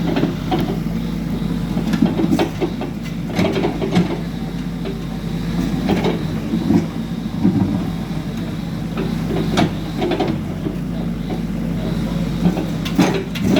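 Excavator's diesel engine running steadily under work, with irregular metallic clanks and knocks from the machine as it digs and loads.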